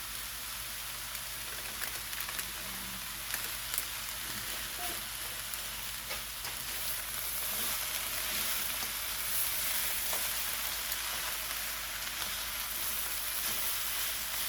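Ham fried rice sizzling and frying in a large pot, a steady hiss with scattered small clicks and ticks from stirring, growing a little louder about halfway through.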